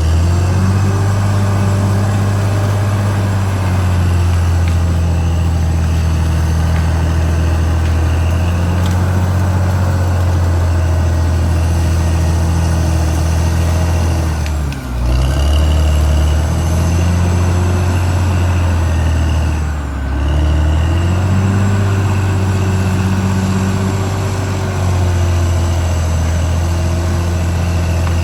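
Caterpillar D6R XL bulldozer's diesel engine running steadily under load, its pitch sagging and picking back up twice, about halfway through and again a few seconds later.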